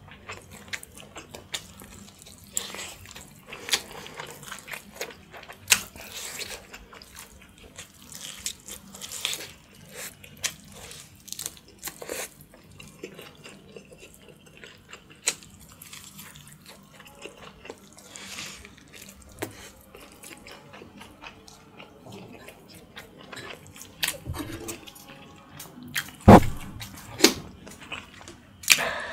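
Close-miked eating: sucking and gnawing meat off a boiled pork backbone in a spicy lime-chilli broth, with wet slurps, smacks and chewing. A few loud sharp knocks come near the end.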